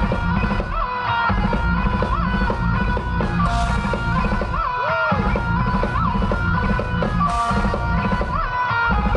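Live heavy metal band playing loud through an outdoor PA, heard from the crowd: a high guitar melody with repeated bent notes over a chugging low rhythm guitar, bass and drums, with a couple of cymbal crashes.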